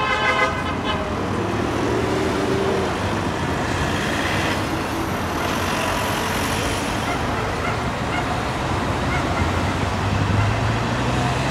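Steady street noise from passing vehicles and a waiting roadside crowd's chatter, with a brief vehicle horn toot about two seconds in.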